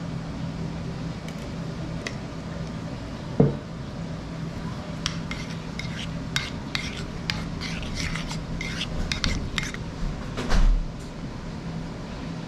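Bang bang sauce being stirred in a bowl with a metal utensil, which clicks rapidly against the bowl in the middle stretch, with a thump about three seconds in and a louder one near the end, over a steady low hum.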